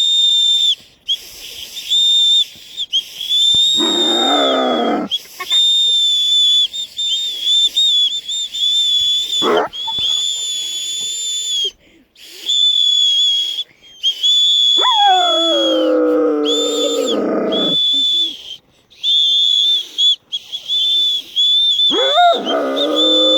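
A whistle blown in repeated steady high blasts, with a Caucasian shepherd dog singing along: its calls start high, slide down and then hold a steady pitch, one short, one long, and another starting near the end.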